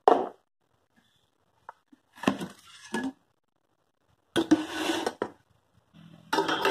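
Stainless steel tiffin containers clinking and clattering as they are taken out of an insulated plastic tiffin carrier and set down on a table: a knock at the start, then three separate bursts of clatter.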